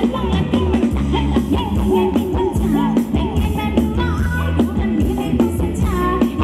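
Live band playing Thai ramwong dance music, with a melody line that bends up and down, likely a singer, over a steady beat.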